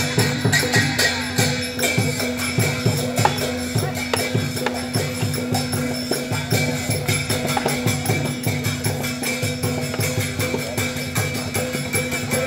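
Traditional northern Thai folk music accompanying a costumed dance: a fast, even beat of drums and jingling percussion over a steady held low tone.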